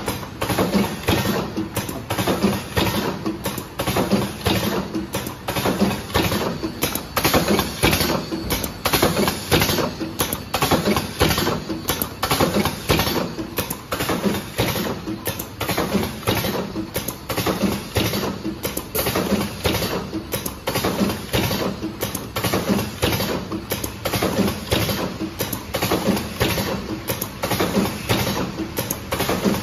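Automatic cartoning machine running: continuous fast clicking and clatter from its mechanisms as it forms and loads small cartons on a rotary turntable.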